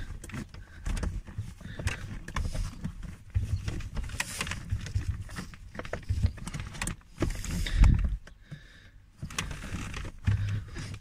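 A hand fumbling behind a plastic car heater blower housing, trying to work a stuck final stage resistor loose: irregular plastic clicks, knocks and rubbing, with dull thumps.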